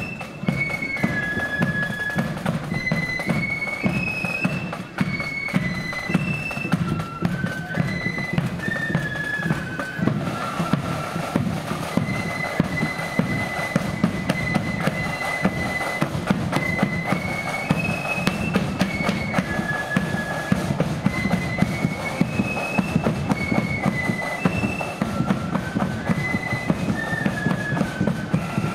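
Flute band playing a tune in unison on flutes, the melody stepping up and down with a long held note about halfway, over a steady beat of snare and bass drums.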